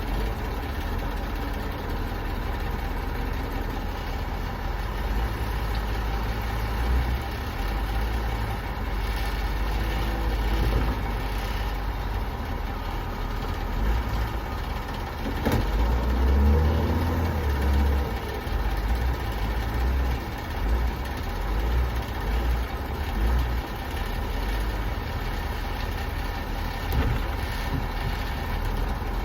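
Truck engine idling steadily with a low rumble, and one sharp click about halfway through.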